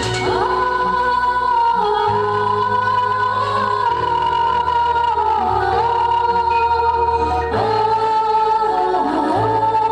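Music: a sung melody with sustained notes over a steady bass line.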